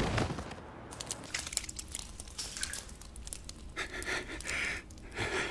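Heavy breathing, a few loud breaths from about four seconds in, after faint scattered clicks and crackles.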